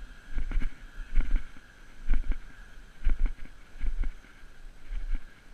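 Dog sled travelling over a packed snow trail: low thumps and knocks about once a second over a steady hiss.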